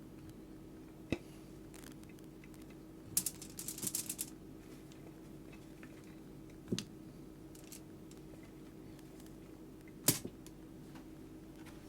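Open wood fire crackling: scattered sharp pops, with a quick run of several about three to four seconds in.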